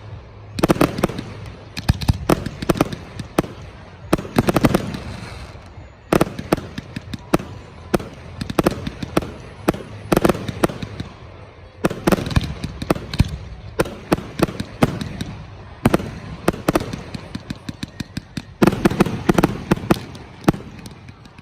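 Fireworks display: aerial shells bursting in rapid volleys of sharp bangs and crackling, coming in clusters every few seconds with short lulls between.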